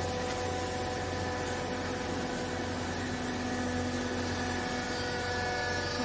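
Vertical hydraulic baler's electric motor and hydraulic pump running with a steady hum. A lower tone joins about two seconds in and fades shortly before the end.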